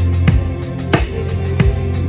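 A live band playing during a sound check: drum kit hits at a steady pulse about every two-thirds of a second over a sustained bass line.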